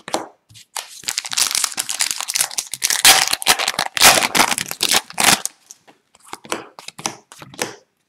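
The wrapper of an Upper Deck 2021-22 Hockey Extended Series retail card pack being torn open by hand, crinkling and tearing for about four seconds. After that come lighter, scattered rustles and clicks as the cards are slid out and handled.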